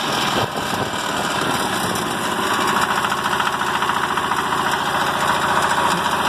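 Horizontal single-cylinder Chinese diesel engine running steadily on its first test run after being mounted on a lawn tractor frame, a little louder in the second half.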